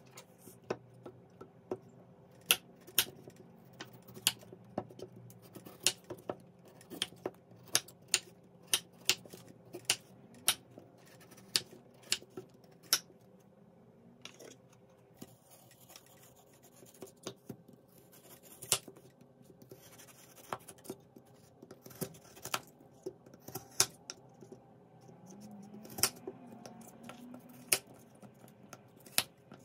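Kitchen knife cutting Korean radish on a bamboo cutting board: irregular sharp knocks as the blade strikes the board, with faint scraping between the cuts.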